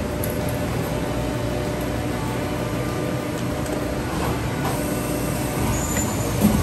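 Steady mechanical hum and rumble of factory machinery around a Trumpf Trumatic 2020R CNC turret punch press, without distinct punching strokes.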